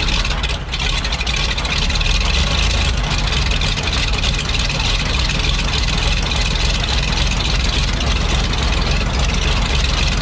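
M4 Sherman tank engine running steadily on a test stand, out of the tank.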